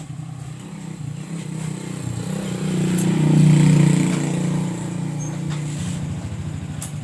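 Motorcycle engine running, getting louder to a peak about halfway through and then easing back to a steady running sound.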